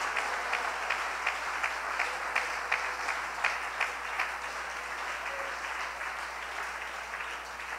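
Congregation applauding, with a steady beat of about two or three claps a second running through it, fading slowly toward the end.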